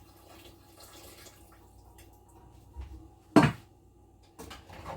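Cookware being handled at the stove, with one sharp, loud knock about three and a half seconds in and a few lighter clatters near the end.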